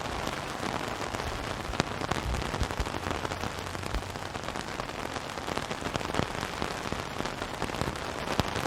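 Steady rain falling on a surface, a dense hiss with many close individual drop ticks and a low rumble underneath.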